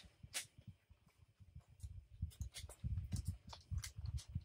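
Faint scattered clicks and crackles of a snack being pulled from a jacket and opened, with soft low thumps of handling that come more often after about two seconds.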